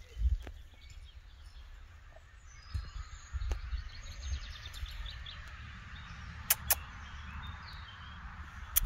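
Birds chirping in the background over a low rumble, with a quick run of high trilled notes a few seconds in and two sharp clicks near the end.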